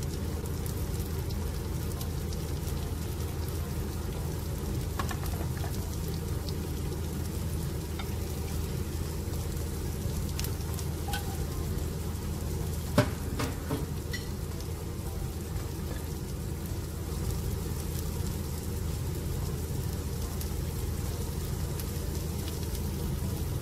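Sliced onions frying in a little oil in a pot: a steady sizzle with scattered small crackles and one sharper pop about 13 seconds in.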